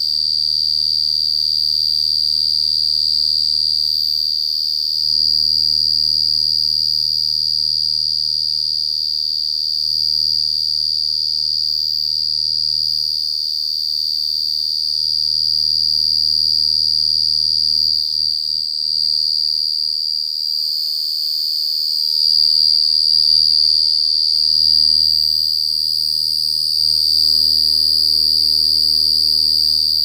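Cricket singing a loud, steady high-pitched song without a break, with a faint low hum beneath.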